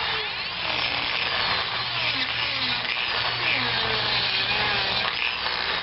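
Small rotary tool with an abrasive cutter disc grinding into the plastic case and potting compound of a CDI unit. It runs continuously, its pitch dipping again and again as the disc bites in and eases off.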